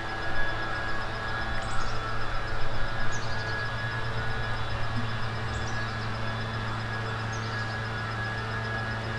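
A steady low mechanical hum from a running machine, with a few faint high chirps over it.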